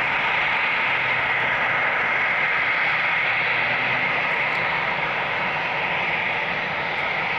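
The four jet engines of a Boeing 747-400 at takeoff thrust, as the jet lifts off and climbs away: a steady, loud jet noise, mostly hiss, easing slightly in the second half.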